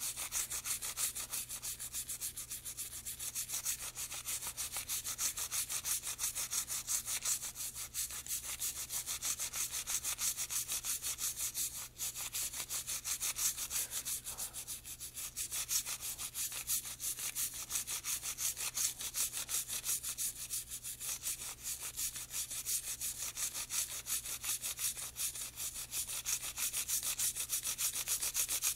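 Toothbrush bristles scrubbing a fouled part of a .22 rimfire suppressor with quick back-and-forth strokes, a steady scratchy rubbing that goes on without a break, working lead and carbon fouling loose.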